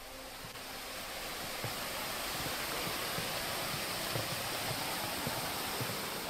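Small waterfall cascading over rocks: a steady rushing of water that builds over the first second or two.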